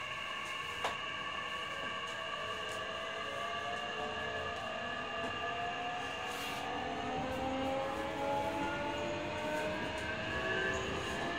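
Nishitetsu 9000 series electric train's Toshiba hybrid-SiC VVVF inverter and enclosed induction traction motors under power: steady high inverter tones, then a set of whining tones that climb slowly in pitch as the train gathers speed. A single click is heard about a second in.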